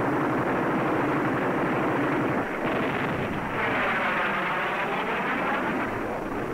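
North American F-100 Super Sabre's Pratt & Whitney J57 turbojet making a low strafing pass, a dense jet roar whose sound sweeps and phases from about three and a half seconds in as the fighter passes over.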